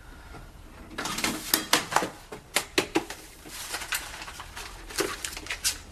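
A letterbox flap clattering as the morning post is pushed through and drops to the floor. It comes as an irregular run of sharp clicks and rattles, starting about a second in and going on in clusters until near the end.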